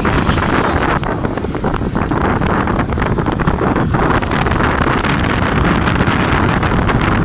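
Steady wind buffeting on the microphone of a camera moving along the road, with the low running noise of a vehicle underneath.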